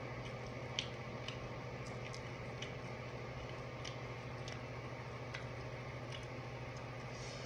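Faint, scattered sticky clicks and smacks from sauce-covered chicken wings being pulled apart by hand and chewed, irregularly spaced, over a steady low hum.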